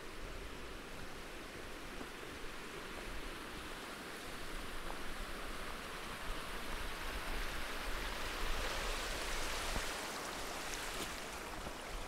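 Small mountain meltwater stream trickling and splashing over rocks. It grows louder to a peak about nine seconds in as the trail crosses it, then eases, with a low rumble underneath.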